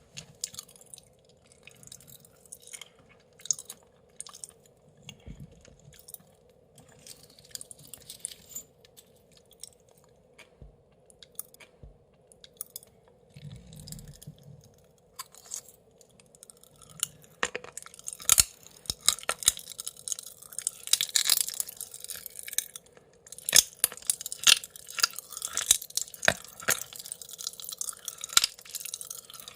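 Close-miked mouth sounds of eating Pachipachi Panic popping candy: scattered wet clicks and chewing at first, then, about two-thirds of the way through, a dense, loud run of crackling pops as the candy fizzes in the mouth.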